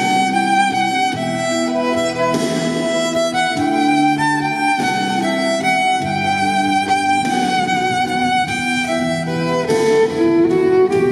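Amplified violin playing a bowed melody over a recorded backing track from a loudspeaker. Near the end the violin is held like a guitar and strummed.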